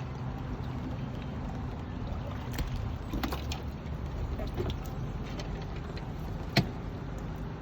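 A steady low engine hum with a few sharp knocks or clicks over it, the loudest about six and a half seconds in.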